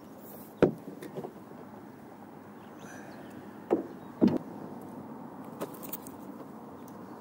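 Several sharp hollow knocks and thumps on a canoe hull, the loudest about half a second in and again around four seconds in, while a hooked largemouth bass is swung aboard and handled. A steady rush runs underneath.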